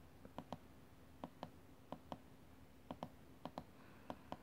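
Small tactile push button on a breadboard being pressed and released over and over, giving short sharp clicks in pairs, a pair every half second to a second.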